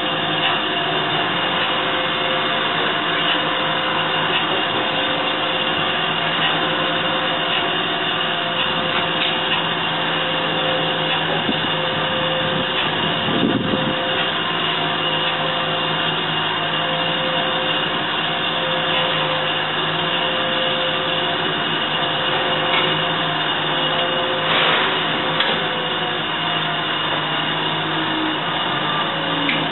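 DoAll 6" x 18" surface grinder running steadily, with a continuous motor and spindle hum carrying several held tones. There are two brief louder noises, about 13 and 25 seconds in.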